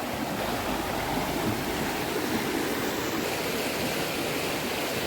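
Running water rushing steadily and without a break.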